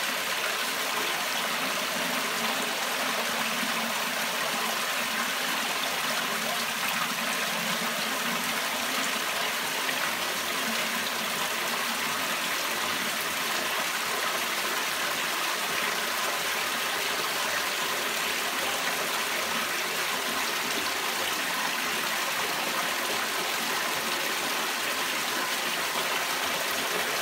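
Pumped pond water pouring steadily out of the perforated inlet pipe of a homemade fleece filter onto the fleece band, fed by an 8000-litre pump.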